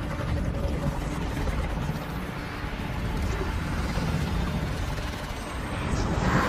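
Film sound effect for a glowing magical energy orb: a dense low rumble that swells and peaks near the end.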